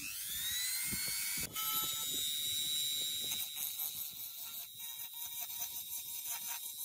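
Electric die grinder with an abrasive cone bit spinning up with a rising whine, then running at a steady high pitch. From about three and a half seconds in the whine turns uneven as the bit grinds the smartwatch's metal case.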